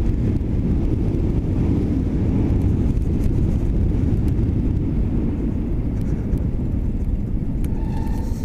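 Wind rumbling over the microphone of a riding electric sportbike at speed, steady and loud. A faint high squeal from the brakes comes in near the end.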